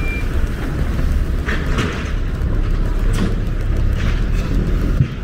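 Street traffic: a steady low rumble of passing vehicles, with a vehicle's reversing beeper sounding briefly right at the start.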